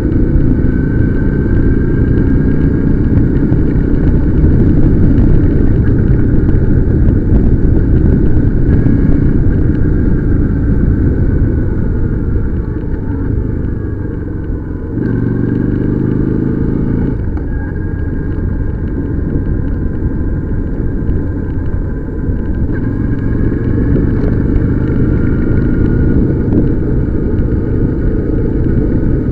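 Motorcycle engine running on the move under heavy wind rumble on the microphone; about halfway through the engine note drops, then climbs again for a couple of seconds.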